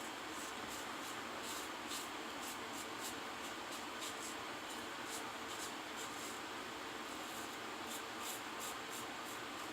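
Short scraping strokes of a GEM Micromatic single-edge safety razor cutting through lathered beard stubble, faint and coming in a quick, uneven series of about two to three a second.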